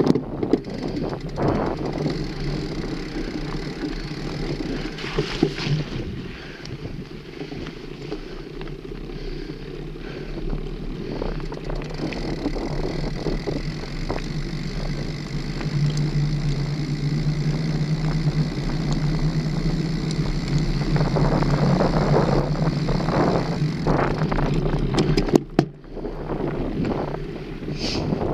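Mountain bike rolling along a dirt forest trail: rumbling tyres and wind on the handlebar microphone, with small rattles and knocks over bumps. A low steady hum grows louder in the second half, and the sound drops out sharply for a moment near the end.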